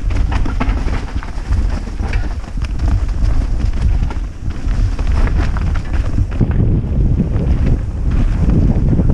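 Wind buffeting a helmet-mounted camera's microphone as a mountain bike rolls fast down a dirt trail, with the bike rattling and clicking over stones and roots.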